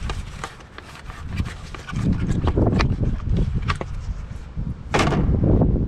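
Irregular clicks and knocks of hand tools on metal, with a steady low rumble underneath and a louder cluster of knocks about five seconds in.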